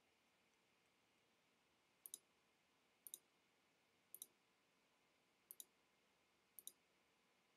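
Five faint mouse-button clicks about a second apart, each a quick double tick of press and release.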